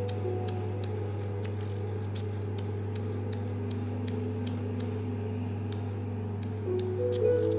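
Sharp clicking from a handheld corded facial-treatment pen worked over the skin of the face, several clicks a second at uneven spacing, over a steady low hum.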